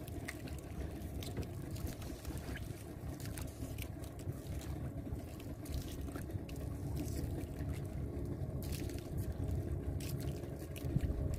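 A boat's engine running low and steady, with water trickling and lapping and a few faint clicks.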